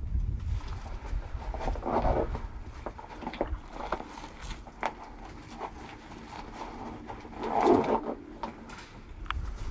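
Scattered sharp clicks and knocks, with two louder rustling bursts, one about two seconds in and one near the end, as a player moves around inside a small plywood tower. Wind buffets the microphone at the start.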